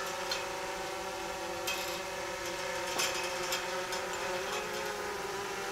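An engine running steadily, with light clicks and scrapes of high-tensile fence wire as it is bent and wrapped around a steel post into a termination knot.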